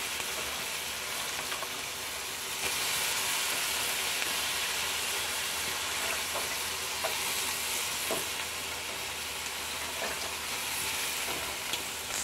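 Shredded cabbage sizzling in a hot wok on top of frying corned beef and egg, a steady frying hiss. It grows a little louder about two and a half seconds in, with a few faint ticks.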